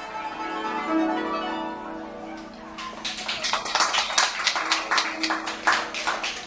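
Guzheng playing: ringing plucked notes for the first few seconds, then from about three seconds in a run of quick, loud plucked strokes.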